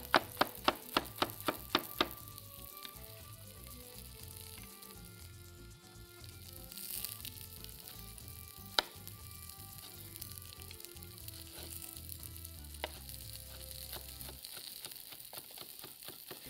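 Chef's knife chopping red bell pepper on a wooden cutting board: a quick run of chops for the first two seconds, a couple of single chops in the middle, and rapid chopping again near the end. Under it, a steady sizzle from tomatoes and onions grilling in a pan on high heat.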